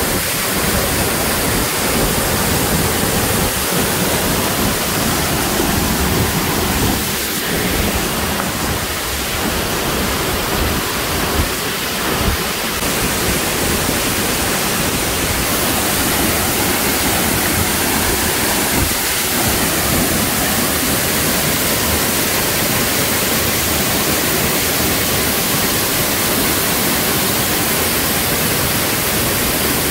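Waterfall pouring over rock into a gorge: a loud, steady rush of falling water.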